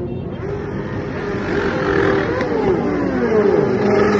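Several sport motorcycles passing in succession, their engines running and revving, with the pitch rising and falling as each bike goes by.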